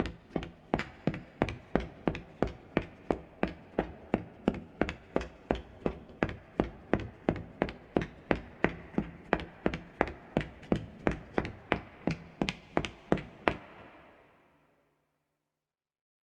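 Leather-soled shoes walking on a soft wooden floor: a steady, even run of footsteps, about two and a half to three a second, that stops a little before the end.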